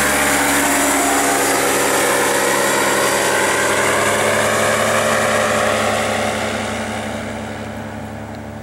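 A two-seat paramotor trike's engine and propeller, flying past overhead. The pitch drops slightly as it passes, and the sound fades over the last few seconds as it flies away.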